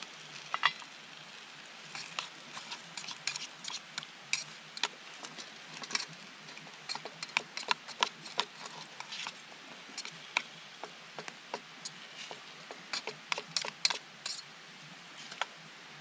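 Spatula stirring and scraping diced potatoes in a small metal camp pot: a long run of irregular clicks and taps against the pot, over a steady hiss. Near the start the metal lid clinks as it is lifted off.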